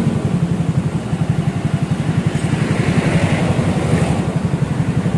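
Honda Scoopy's single-cylinder fuel-injected scooter engine idling through a newly fitted SKR aftermarket exhaust, a steady soft low exhaust pulse. The idle is set a little high.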